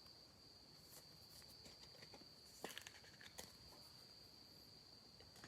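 Near silence: room tone with a faint, steady high-pitched whine, and a few faint clicks about two and a half to three and a half seconds in.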